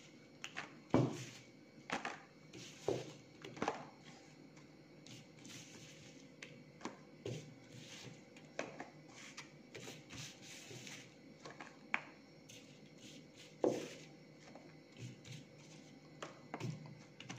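Light, irregular taps and rustles of green chillies being dropped into and handled in a plastic container set on newspaper.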